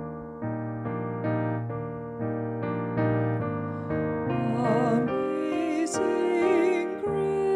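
Gentle piano music playing a slow run of chords, a new chord about every half second. About halfway through, a second melody with a marked vibrato joins above the piano.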